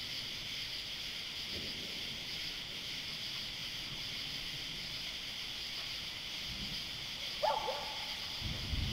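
Steady high-pitched outdoor night hiss, with one short falling call about 7.5 seconds in. Low thunder rumble starts near the end, just after a lightning flash.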